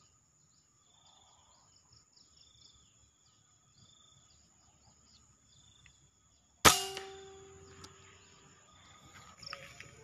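A single shot from a Bocab 500cc FX PCP air rifle about two-thirds of the way in: one sharp crack with a short ringing tail. The shot brings down a spotted dove.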